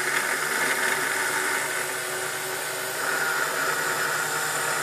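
Cooling fans of a Check Point UTM-1 570 appliance running with a loud, steady whir and hum, growing slightly louder about three seconds in. The noise comes mainly from the faulty rear case fan, with the CPU fan also failing.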